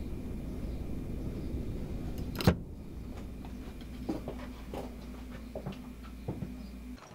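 Steady low electrical hum of a small room, broken by one sharp click about two and a half seconds in. A few soft footsteps follow as a man walks away across the floor.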